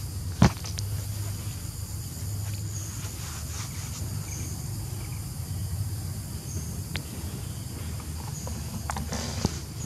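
Outdoor ambience with insects chirping in short high bursts every second or two over a steady low rumble. A sharp click sounds about half a second in, and a few fainter clicks follow later.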